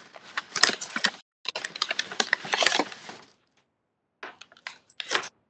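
Typing on a computer keyboard: two runs of rapid clicking keystrokes with a short break between them, then a few more keystrokes near the end, picked up over a video-call microphone.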